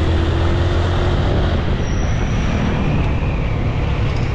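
Motorcycle engine running steadily at around 50 km/h, mixed with a steady rush of wind and road noise on the rider's microphone.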